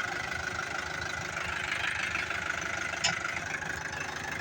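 Heavy machine's diesel engine idling steadily, with one short sharp click about three seconds in.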